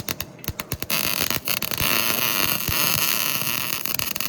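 Welding arc on exhaust pipe: a few sharp crackles as the arc strikes, then a steady frying crackle from about a second in as the weld runs.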